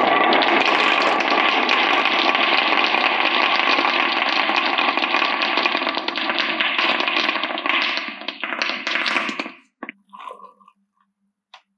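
Many marbles rolling and clattering down a marble run as a dense, continuous rattle that stops at about nine and a half seconds, leaving a few separate clicks of single marbles.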